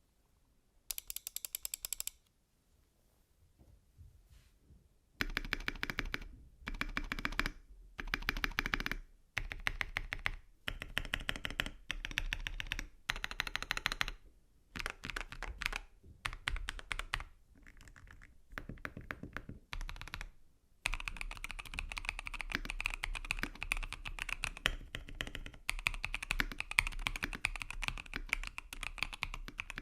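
Typing on a custom 65% mechanical keyboard built with an FR4 plate, lubed Wuque Studio Morandi switches and MDA keycaps, its sound tuned to lie between creamy and thocky. The typing comes in runs of a second or two with short pauses, then runs on unbroken in the last third.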